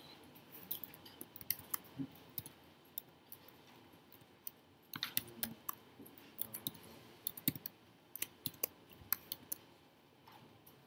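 Keystrokes on a computer keyboard: faint, irregular clicks in short runs, busiest about five seconds in and again from about seven to nine seconds.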